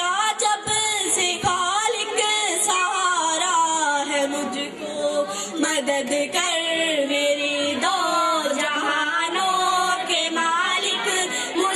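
A song with a high singing voice over musical accompaniment, the voice holding and sliding between notes of a melody without pause.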